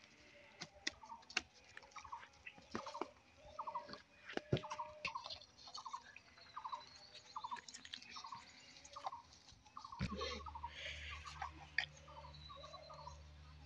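A bird calling a long series of short, falling notes, about two a second, with a few higher chirps. Scattered clicks and rustles come from paper and plastic being handled, and a low steady hum starts about ten seconds in.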